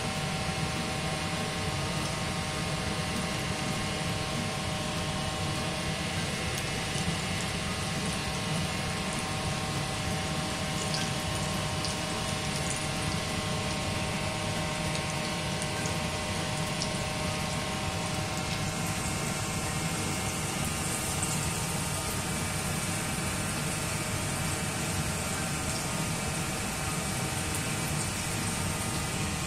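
Fish cakes shallow-frying in a pan of hot oil on a gas stove, a steady sizzle over a constant background hum. The sizzle gets brighter about two-thirds of the way in, as more cakes go into the oil.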